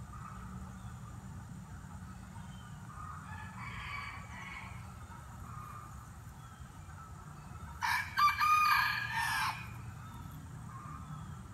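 A rooster crowing once, loudly, about eight seconds in, for about a second and a half. A fainter call comes earlier, around three to five seconds in.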